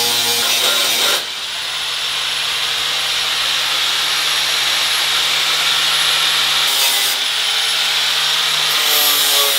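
Angle grinders grinding down butt welds on the steel of a car's rear wheel flare. A large angle grinder opens with a motor whine. About a second in, a small 3-inch 40-grit disc grinder with a high, thin whine takes over; it stops briefly and spins back up about seven seconds in.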